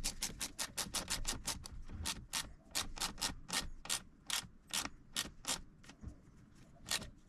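Socket ratchet turning a 7mm socket to tighten a worm-drive hose clamp, clicking rapidly at about five clicks a second. The clicks slow and stop near the end as the clamp comes tight.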